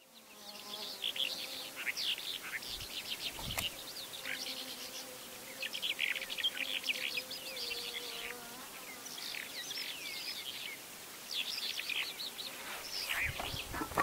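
Bimaculated lark singing: fast runs of chirping, trilling notes in repeated bursts of a second or two, with short breaks between them.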